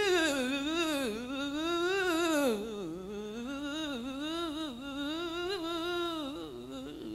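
A solo singer's wordless vocal run: one voice holding a long ornamented line whose pitch wavers and slides through quick turns. It dips low about three seconds in and trails off at the end, with little or no accompaniment behind it.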